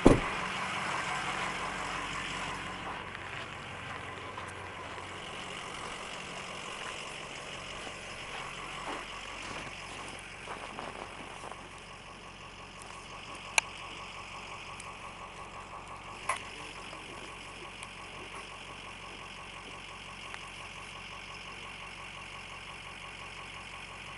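Vehicle engine idling steadily. A loud thump comes right at the start, and two sharp clicks come about halfway through.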